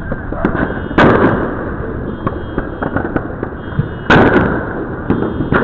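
Fireworks going off: two loud bangs, about a second in and about four seconds in, over a steady background of many smaller pops and crackles.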